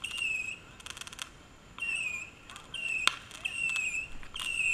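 Night insects chirping in short, evenly repeated calls about once a second. A quick crackle comes about a second in and a single sharp pop about three seconds in, typical of fireworks going off.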